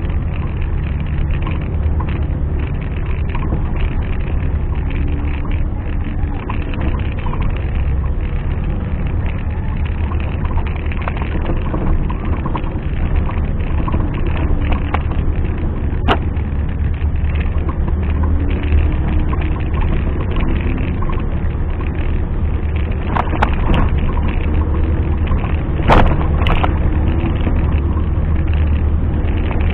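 Off-road 4x4's engine running with a steady low rumble, pitch wavering slightly as it works, and a few sharp knocks in the second half.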